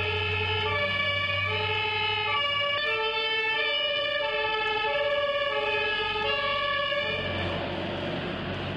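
German two-tone emergency-vehicle sirens (Martinshorn) sounding their alternating high-low pattern. Several horns overlap out of step. They stop about seven seconds in, leaving a low engine and road rumble.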